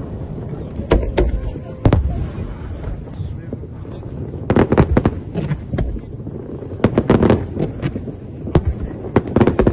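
Fireworks show: bangs of bursting shells, singly about a second and two seconds in, then in quick rattling clusters around the middle and again near the end.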